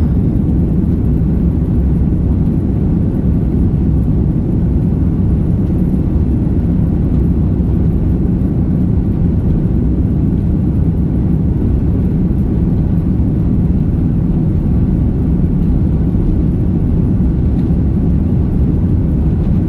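Steady low rumble of a jet airliner heard from inside the cabin as it rolls along the runway: engine and wheel noise, even throughout with no rise in pitch.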